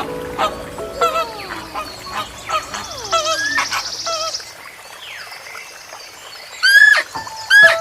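Birds calling: a run of short chirps and whistled notes, a buzzy trill in the middle, and two loud rising calls near the end.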